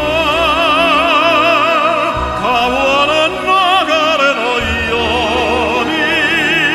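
Operatic tenor singing long held notes with wide vibrato, over instrumental accompaniment.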